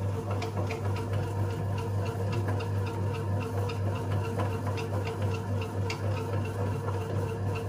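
Breville Custom Loaf Pro bread maker kneading dough: the kneading motor runs with a steady low hum and a fast, regular ticking as the paddle works the dough ball.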